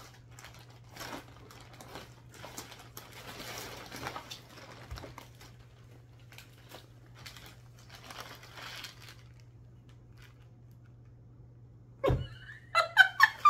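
Clear plastic bag crinkling and rustling as it is opened and a cloth T-shirt is pulled out of it, over a low steady hum. About twelve seconds in there is a thump, then a burst of laughter.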